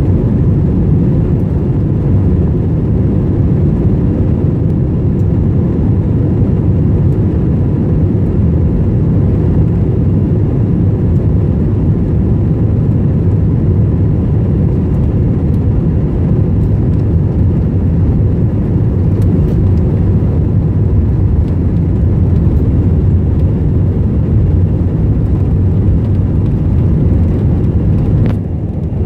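Jet airliner engines and airflow heard from inside the passenger cabin: a loud, steady low rumble while the plane taxis on the ground. It dips briefly near the end.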